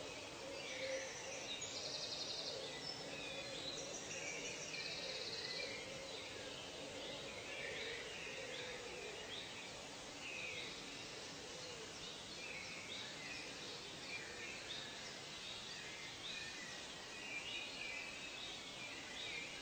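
Nature ambience: many birds calling and chirping over a steady background hiss, with a couple of short buzzy trills in the first few seconds.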